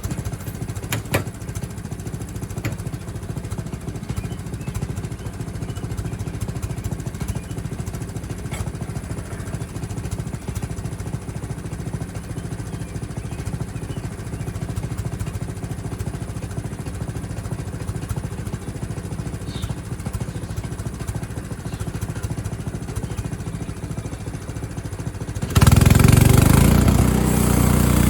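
Frontier OS23 portable sawmill's small gasoline engine running steadily, then suddenly much louder about 25 seconds in, as when the mill is revved up to saw a board.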